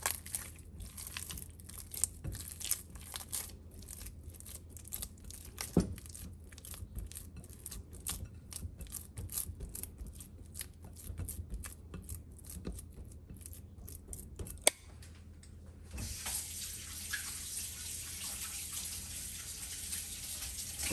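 Hands kneading soft, sticky bread dough in a glass bowl: a quick run of small wet squishes and slaps, with a couple of sharper knocks. About five seconds before the end a steady hiss of running tap water takes over.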